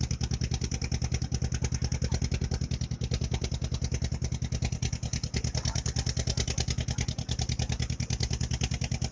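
Motorboat engine running steadily under way, a rapid, perfectly even thudding beat.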